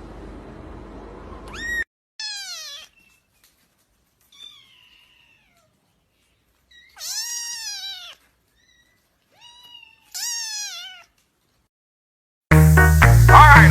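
A cat meowing about five times, each meow a short call that rises and falls in pitch, the longest about seven seconds in. Loud music cuts in suddenly near the end.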